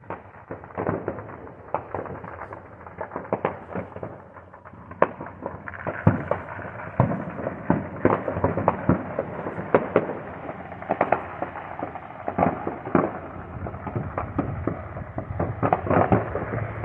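Many fireworks and firecrackers going off at once: a dense, irregular barrage of bangs over continuous crackling, growing thicker about six seconds in.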